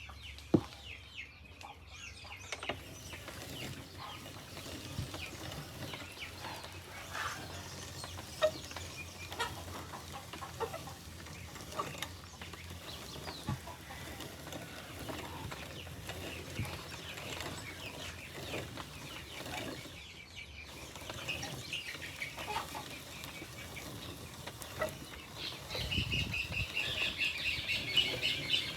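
Chickens clucking, with scattered short knocks and clicks; near the end the calls become a louder, rapid run of high squawks.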